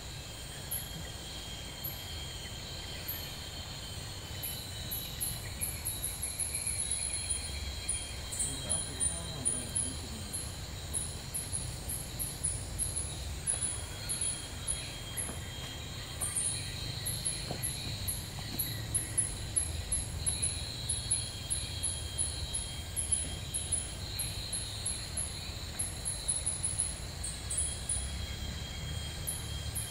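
Tropical rainforest ambience: runs of rapid, very high, short chirps that grow denser after a few seconds, over a faint steady insect drone and a low rumble.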